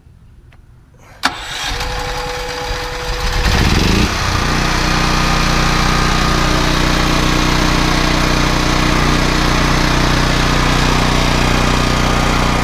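Westinghouse WGen9500DF portable generator's single-cylinder engine electric-started on propane: a click a little over a second in, about three seconds of cranking, then the engine catches about four seconds in and runs steadily.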